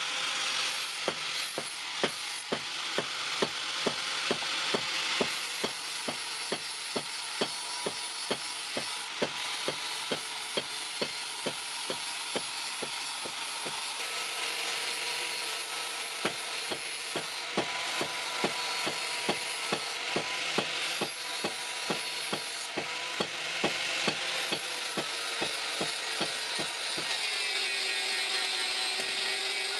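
Hand metalworking on scissors: sharp metallic clicks about twice a second over a steady scraping hiss. The clicks stop near the end, leaving the hiss with a faint wavering tone.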